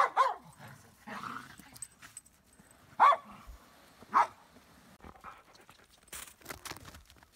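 Border collie barking: two quick barks at the start, then single barks about three and four seconds in.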